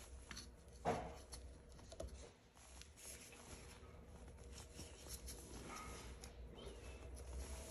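Faint knocks and rubbing of engine parts being handled, with a clear knock about a second in and a smaller one about two seconds in, over a low steady hum.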